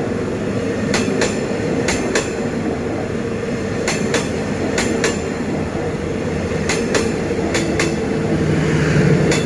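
Passenger train's stainless-steel coaches rolling past close by: the wheels strike the rail joints in pairs of sharp clacks, about six pairs, over a steady rumble. The wheel-on-rail impacts are very solid and heavy.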